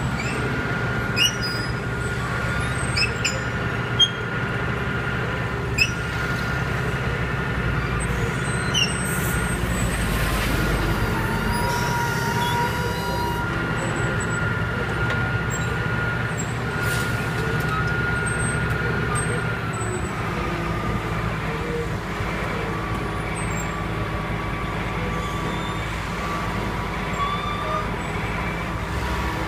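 Roadtec cold planer's diesel engine running steadily, with a steady high whine, as the machine crawls on its tracks up ramps onto a low-bed trailer. A truck drives past at the start.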